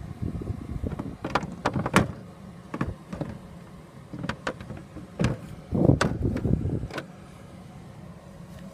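Handling noise: a string of sharp clicks and knocks with rustling between them for about seven seconds, then it stops and only a low steady hum remains.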